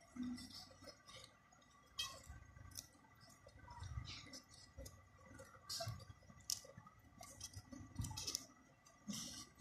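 Large metal tailor's shears cutting through a stack of paper sheets: a series of faint, irregular snips and blade clicks.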